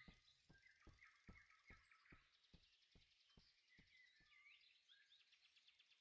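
Very faint birdsong of short chirps and trills, over a series of soft, evenly spaced ticks, about two or three a second, that die away by about halfway through.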